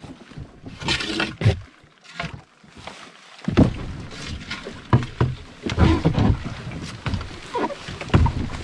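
Water splashing and slapping around a canoe on choppy lake water, in irregular bursts that come thicker from about three and a half seconds in after a quieter stretch.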